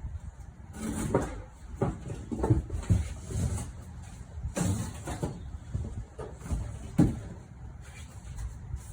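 A sheet of cardboard being handled and pushed into place under the car's suspension: irregular scrapes, rustles and bumps, with a sharper knock about seven seconds in.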